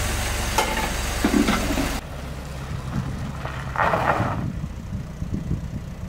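Toyota Corona Deluxe engine idling steadily while it warms up after a start. About two seconds in, the sound drops abruptly to a quieter, more distant low rumble, and a short rush of noise comes a little later.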